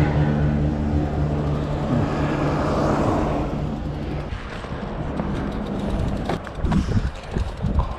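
A motor vehicle engine running with a steady low hum that fades out about four seconds in, over a noisy outdoor background, followed by a few sharp clicks near the end.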